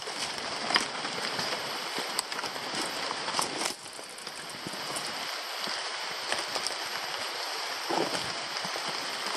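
Steady rain falling, an even hiss with scattered sharp taps of drops; it gets a little quieter just under four seconds in.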